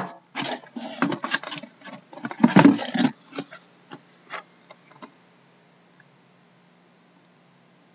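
A boxed trading-card box being handled: knocks, scrapes and rustles as it is lifted and turned over, busiest in the first three seconds. A few scattered clicks follow, then it goes quiet apart from a faint steady hum.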